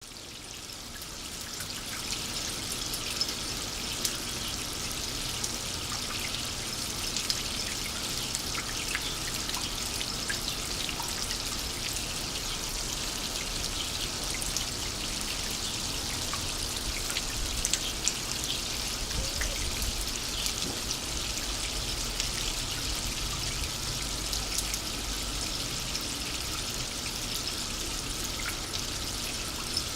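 Water running down a copper loop rain chain: a steady splashing trickle with many small sharp drip ticks. It fades in over the first second or two.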